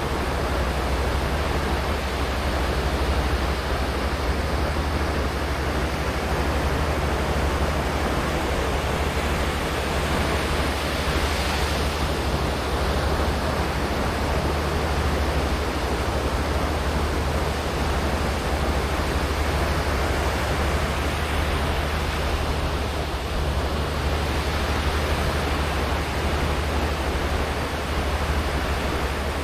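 Ocean surf washing onto a beach: a steady, even rush of waves with a deep rumble underneath, swelling slightly twice as larger waves come in.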